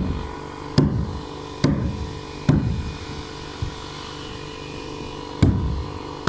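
Sledgehammer blows knocking a tongue-and-groove plywood subfloor sheet tight into its joint: heavy thuds about a second apart, then a light tap and, after a pause of about three seconds, another blow. A faint steady hum runs underneath.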